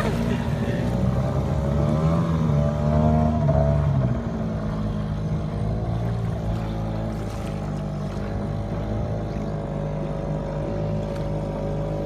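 Engine of a wooden motorboat running steadily under way; about four seconds in it drops to a lower, quieter note and holds there.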